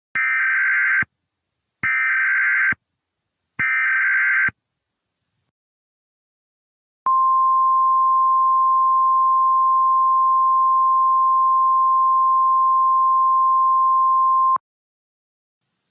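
Emergency Alert System SAME header: three short, buzzy bursts of data tones, each a little under a second and about a second apart. After a pause of about two and a half seconds comes a single steady 1050 Hz NOAA Weather Radio alert tone, held for about seven and a half seconds before cutting off. Together they signal the start of a new emergency alert.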